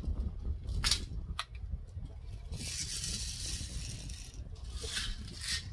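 Steel BBs rattling and pouring in their container as they are shaken out for loading, with two sharp clicks about a second in.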